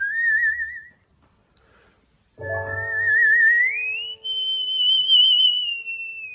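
A man whistling a melody with wide vibrato: a short phrase, a pause of about a second and a half, then a note that glides up and is held, sinking slightly near the end. From about two and a half seconds in, a clarinet holds one low steady note beneath the whistling.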